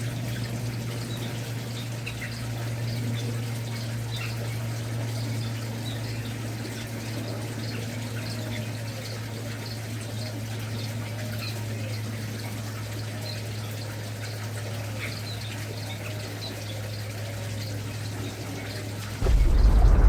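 Faint, scattered chirps of a kopi-kopi (cucak kopi) bird over a steady low hum and hiss. Near the end a much louder rumbling noise breaks in suddenly.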